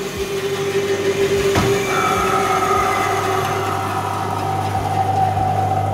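Steady machine hum and whine of a Felder bandsaw and its dust extraction running. About a second and a half in, a click, after which the whine moves to a higher pitch that slowly sinks.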